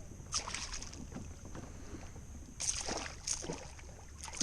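Water splashing around a kayak: four short splashes over a low steady wind rumble.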